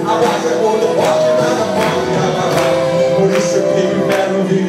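Live gospel music: a male singer singing into a microphone over the church sound system, with a band behind him keeping a steady beat.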